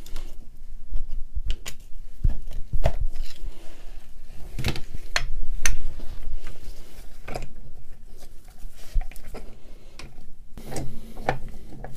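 Irregular clicks, knocks and light scrapes of hand-work on the Wacker EHB10/100 demolition hammer's housing as its cover is worked open.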